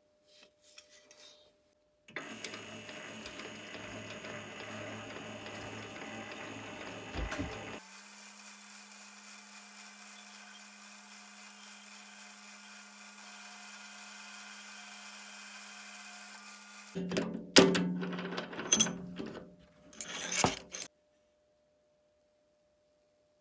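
Small metal lathe turning a metal rod into a new wheel axle: several seconds of cutting noise, then the lathe running on with a steady hum. A few loud knocks and clatters follow near the end.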